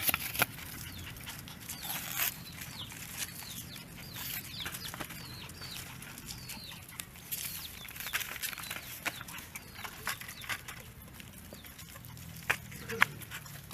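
Young chickens peeping: many short, high chirps, each falling in pitch, scattered through the whole stretch, with a few sharp clicks among them.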